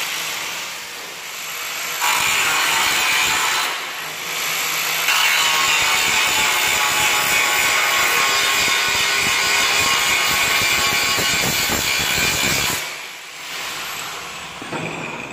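Corded angle grinder grinding the heads off old steel rivets in a truck bonnet hinge, the disc biting into the metal in two long, loud passes with a short let-up about four seconds in. It eases off about thirteen seconds in to a lighter whine.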